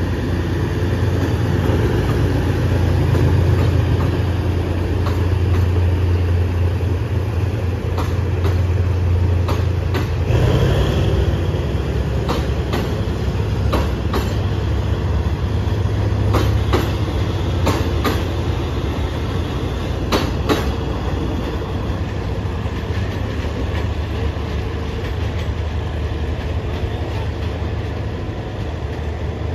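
SRT GEK-class diesel-electric locomotive running with a steady low engine drone as its train moves through the station, with a series of wheel clacks over rail joints in the middle stretch.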